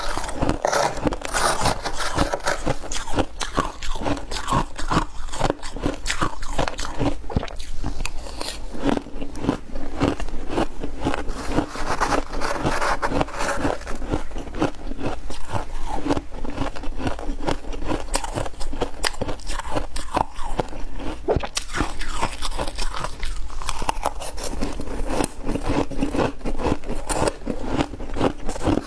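Crunchy ice being bitten and chewed, mixed with a spoon scraping through it: a dense, unbroken run of crisp crunches and scrapes.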